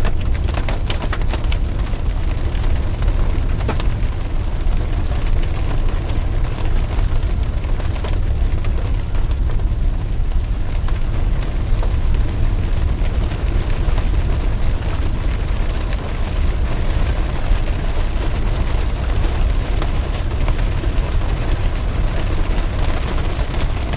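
Heavy storm rain drumming on a vehicle, with strong wind rumble on the microphone; a run of sharp strikes, like hailstones hitting, in the first few seconds.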